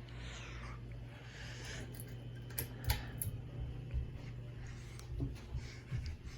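A few sharp clicks and light rattling from a Hunter Westminster ceiling fan's pull-chain switch being worked, over a steady low hum.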